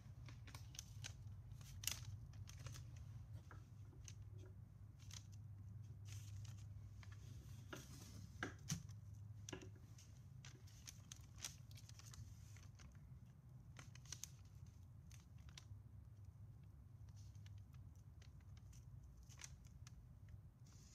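Faint handling noise: scattered light clicks and taps of small cardboard tubes and tools moved about on a paper-covered workbench, the sharpest about two seconds in and about eight and a half seconds in, over a low steady hum.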